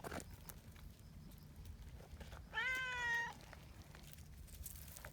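A cat meows once, a single drawn-out meow lasting under a second, about two and a half seconds in, its pitch rising briefly and then holding.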